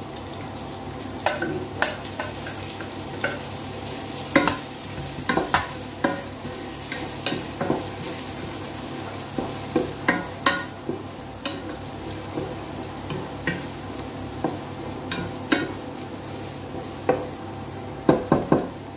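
Chopped tomato, garlic and onion sizzling in oil in a pot, stirred with a wooden spatula that knocks and scrapes against the pot many times.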